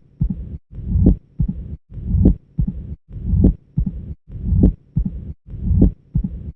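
Heart sounds of mitral stenosis in the classic Duroziez rhythm, repeating a little more than once a second. In each beat a low diastolic rumble swells into a loud, sharp first heart sound, followed by the second heart sound and an opening snap. The rumble is the mid-diastolic murmur with presystolic accentuation of a narrowed mitral valve.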